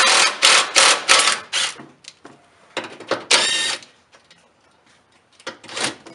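Power tool run in short bursts, backing out the 10 mm bolts that hold a car's underbody splash shield. A long burst at the start, several short ones, another longer burst about three seconds in, and two short ones near the end.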